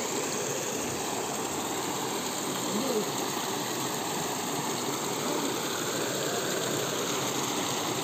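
Steady rushing of a small waterfall, water spilling over rocks into a pool.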